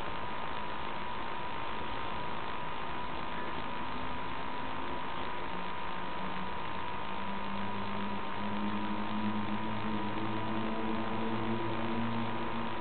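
Steady hum and hiss with a constant high whine. A lower droning hum comes in about halfway through and grows a little louder toward the end.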